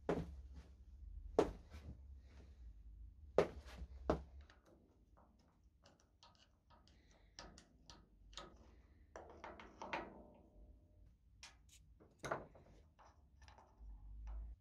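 Old cast-iron Morso mitre guillotine worked by its foot pedal, giving four loud metal clunks in the first four seconds. Then lighter clicks and a spell of scraping as a screwdriver prises at a handle pivot and washer on the frame, with one more knock a little later.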